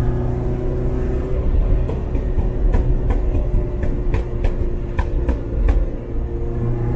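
Lada 2104's swapped-in BMW M44 inline-four running, with a string of sharp, irregular exhaust pops over the steady engine drone from about a second and a half in until near the end. The popping comes from the Ecumaster ECU being tuned to make the exhaust pop in series.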